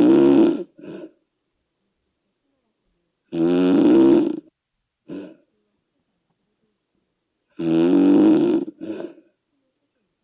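A sleeping person's loud snoring: three long, rough snores about four seconds apart, each followed by a short, fainter sound, with silence between them.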